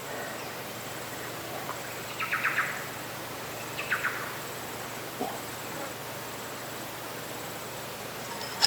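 Birds chirping in two short bursts of quick notes, over a faint steady high hiss of insects; a sharp tap near the end.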